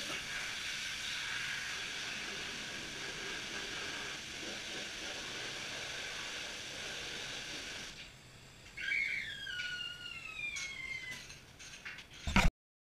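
Drive-on platform car lift lowering a car: a steady hiss for about eight seconds, then a squeal that falls in pitch, a few clicks, and a sharp clunk near the end.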